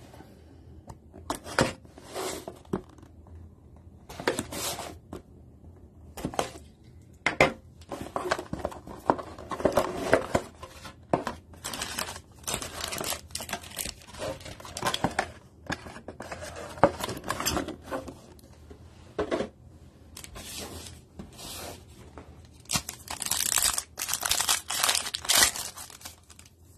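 A cardboard trading-card box is opened and handled with irregular scraping and rustling. Near the end a foil booster pack is crinkled and torn open.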